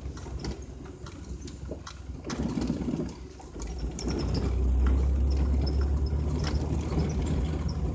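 Vehicle driving along a dirt and gravel road, heard from inside: a steady low engine and road rumble with scattered knocks and rattles, growing louder about halfway through.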